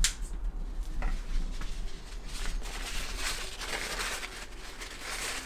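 Scratchy scrubbing and wiping strokes from cleaning packed dirt out of the rebound adjuster area of a suspension fork, with a click about a second in. A steady low hum runs underneath.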